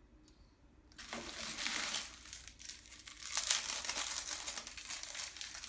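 Packaging crinkling as it is handled and unwrapped, starting about a second in and going on irregularly.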